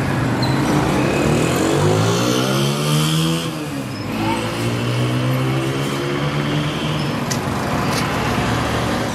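Street traffic: a motor vehicle's engine accelerating, its pitch rising about two seconds in and dropping back, then running at a steady pitch for a few seconds, over a constant traffic hiss.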